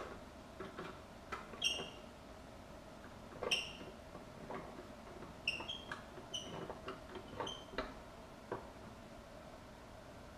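Light metallic clinks and taps at uneven intervals, several with a short bright ring, as metal shop hardware or tools are handled at the lathe.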